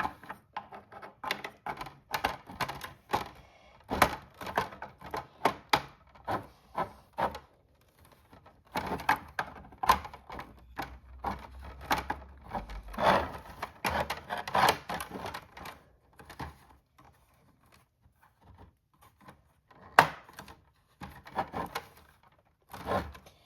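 Toy barn kit pieces clicking, knocking and clattering as they are handled and fitted together, in irregular runs of sharp taps with one louder snap about twenty seconds in.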